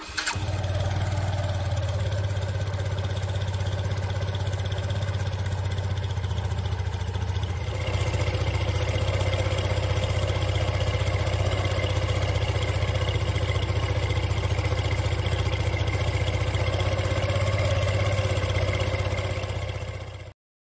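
Yamaha GTR Aero scooter's single-cylinder engine idling steadily. About eight seconds in it gets slightly louder, and it cuts off suddenly near the end.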